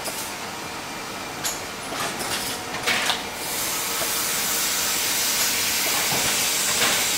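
CD production line machinery running, with a few sharp clicks in the first three seconds. From about three and a half seconds in, a steady, loud hiss takes over.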